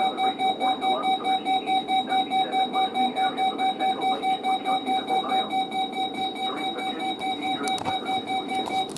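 Weather radio receiver's alert alarm: a single-pitched electronic beep pulsing rapidly, about four times a second, over a steady hiss, cutting off at the end.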